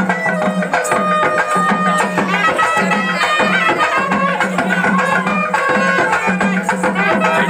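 Tamate frame drums beaten in a fast, driving rhythm, with a reed pipe playing a wavering melody over a steady low drone: South Indian village folk music for mari kunita dancing.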